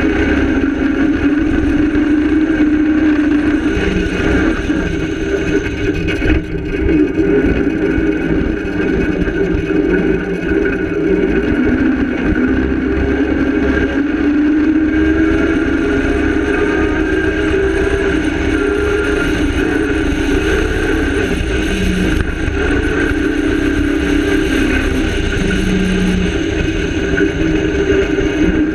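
Cross-country rally car's engine running hard on a dirt track, its pitch rising and falling as it revs up and drops back through gear changes, with a brief lift about six seconds in.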